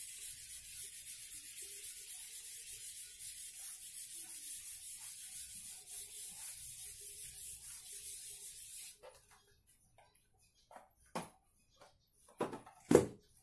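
Whiteboard eraser rubbed back and forth over a whiteboard in quick, even strokes, a steady scratchy hiss that stops about nine seconds in. A few sharp knocks follow near the end.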